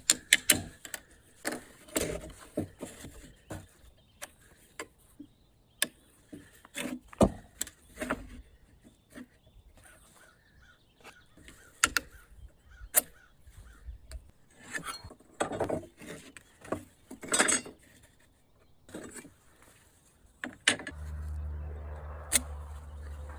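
Woodworking handling sounds: pieces of wood knocked, tapped and set down on a workbench in irregular sharp clicks and knocks, with a few brief scraping rubs. About three seconds before the end a steady low hum starts.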